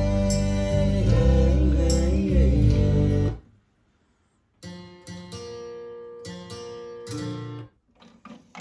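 Guitar music with singing played back from a CD. It stops abruptly about three and a half seconds in and, after a second of silence, guitar music starts again, then cuts off near the end, followed by a few short clicks.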